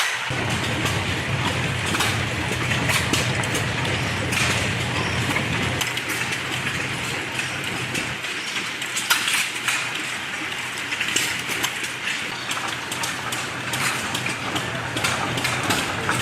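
Antique small gas engines running, heard as irregular sharp pops and clicks over a steady mechanical noise and a low hum.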